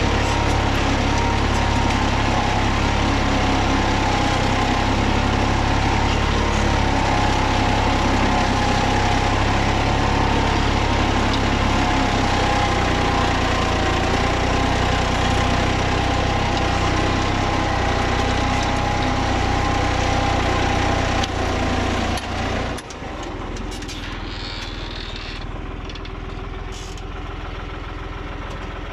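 New Holland TD80 tractor's diesel engine working steadily under load while pulling a plough. A little over 22 seconds in it drops abruptly to a lower, quieter idle.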